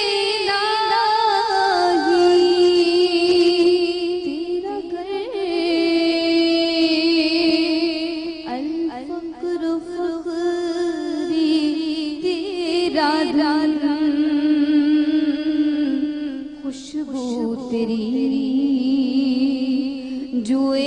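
A woman sings solo into a handheld microphone: a slow devotional melody with long held, wavering notes and ornamented turns.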